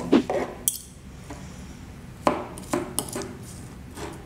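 Two metal forks scraping and clinking on a plastic cutting board as they pull a cooked chicken breast apart into shreds, in a handful of irregular short clinks and scrapes.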